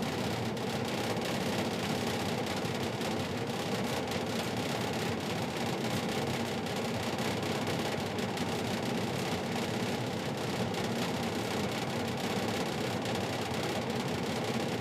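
Forced-air furnace running with a steady whirring noise that does not change.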